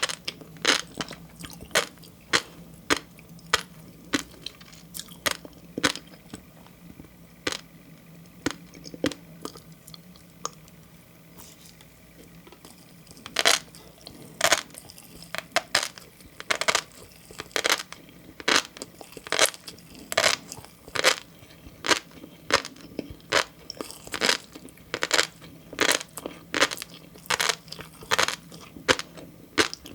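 Close-miked chewing of green tobiko (flying fish roe): a rapid run of crisp pops and crunches as the small eggs burst between the teeth. There is a quieter stretch from about ten to thirteen seconds in before the popping picks up again.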